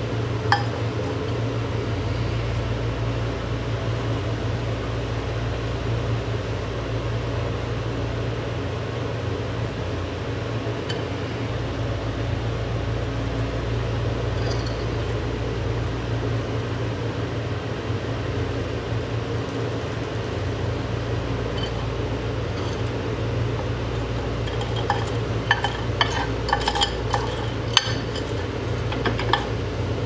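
Microwave oven running with a steady hum while pills and capsules char on its glass turntable. Sharp clicks and small pops from the heating capsules on the glass plate come a few at a time at first and in a thick cluster near the end.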